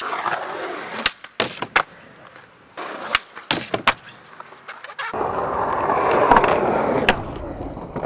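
Skateboard wheels rolling on concrete, broken by several sharp clacks of the board popping and landing. The rolling grows louder about five seconds in.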